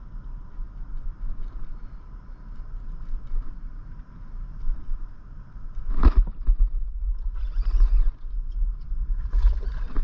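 Steady low wind-and-water rumble on an action-camera microphone while fishing. About six seconds in there is a sudden loud hit, followed by rustling handling noise as a bass is hooked and the rod loads up.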